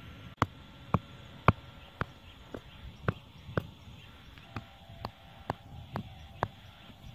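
Sharp knocks, about two a second, the first few loud and the rest fainter: short bamboo stakes being hammered into the ground.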